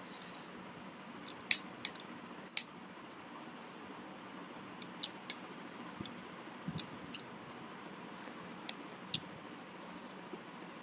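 Scattered sharp clicks of a computer mouse and keyboard, alone and in quick pairs and clusters, over a steady low hiss.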